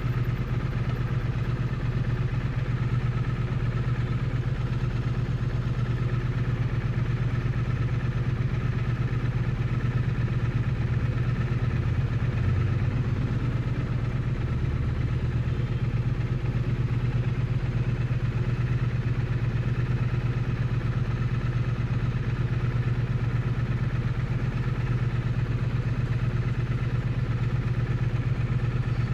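Triumph Bonneville T100's parallel-twin engine running at steady revs, its exhaust heard close up.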